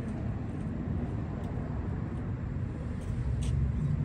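Steady low rumble of road traffic, car engines and tyres on the road, swelling slightly toward the end.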